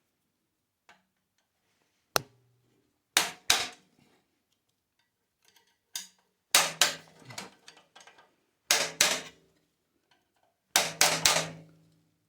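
Light hammer-type taps on a metal retaining clip, driving it onto a gas water heater's burner assembly. A single sharp tap, then strikes in pairs and threes every couple of seconds.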